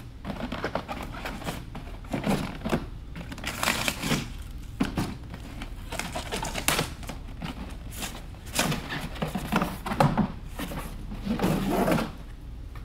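Cardboard packaging rustling and scraping in irregular bursts as a folded sleeve is worked off a scooter seat, with a few dull knocks.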